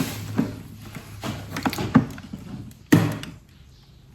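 Light knocks and taps of household items being handled and set down, about five in all, the loudest near three seconds in.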